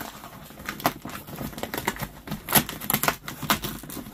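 Fingernails scratching and picking at plastic packing tape on a cardboard shipping box, tearing it open in a quick, irregular series of scrapes and taps.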